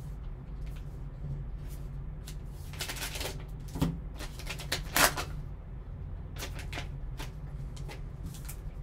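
A foil trading-card pack wrapper crinkling as it is opened, with the knock of a hard plastic card case being handled and set down; the loudest rustles and knocks come about three and five seconds in, over a steady low hum.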